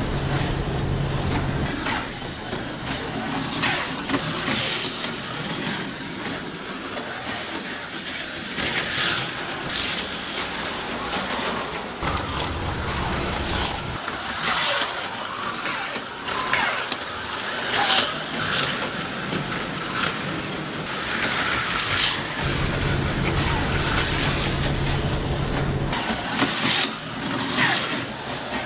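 HO scale slot cars running around the track, their small electric motors whirring and rising in a high-pitched whoosh each time a car passes close by, every second or two. A low steady hum comes and goes underneath.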